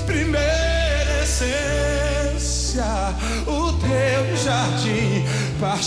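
Live gospel worship band playing slow held chords, with low bass notes changing every couple of seconds, while a male singer holds and bends wavering notes between lines of the song.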